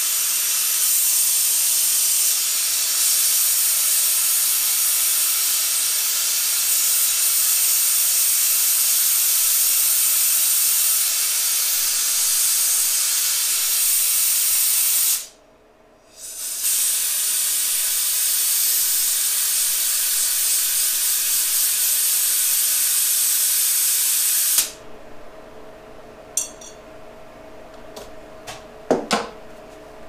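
Handheld gas torch flame hissing steadily while heating a small metal part. It stops for about a second halfway through, starts again, and shuts off abruptly a few seconds before the end, followed by a few light metallic clicks and a ringing clink.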